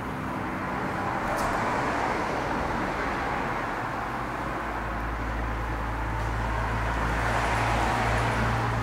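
Road traffic passing close by, a steady tyre-and-engine hiss that swells as vehicles go past, with the low hum of a heavy vehicle's engine coming in about halfway through.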